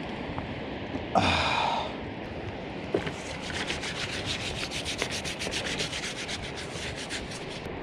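Rapid, even rubbing strokes, about five a second, starting about three seconds in, after a short louder scrape about a second in, over a steady background rush.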